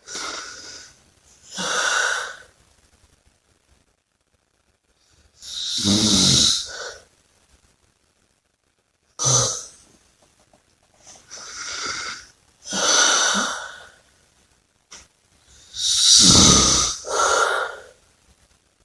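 A person snoring and breathing heavily: separate noisy breaths with silent pauses between, often in pairs of a longer and a shorter breath. The two loudest breaths, about six seconds in and near the end, carry a deep snoring rattle; the rest are mostly breathy hiss.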